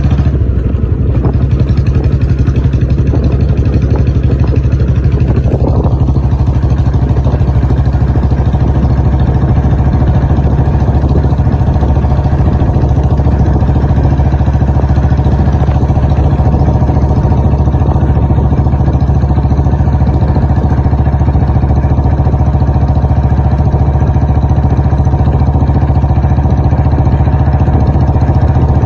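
Royal Enfield Bullet 350's single-cylinder four-stroke engine running loud and steady, with an even beat of firing strokes. Its pitch rises briefly about six seconds in.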